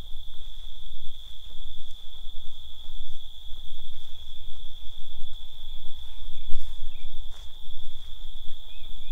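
Night insects in grass keeping up one steady high drone. Under it is a low, uneven rumble from walking with a handheld camera, with a couple of sharp clicks a little past the middle.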